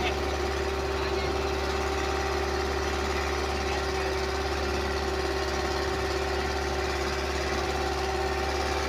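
Engine of a wooden motor boat running steadily under way, at an unchanging pitch.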